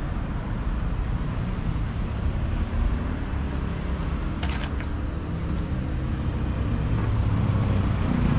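Motorcycle engine running, low and steady.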